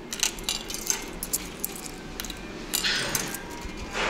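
Metal coins clinking in a hand and being dropped into a vending machine's coin slot: a few sharp clicks, then a short rattle of coins about three seconds in.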